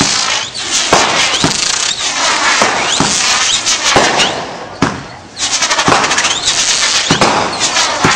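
Fireworks going off in rapid succession: a continuous hiss of spraying sparks thick with sharp crackles and pops, with a few short rising whistles. It eases off briefly about five seconds in, then starts up again just as loud.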